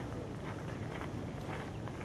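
Outdoor bonfire of folded paper cranes smouldering, with a steady low rumble and scattered faint crackles.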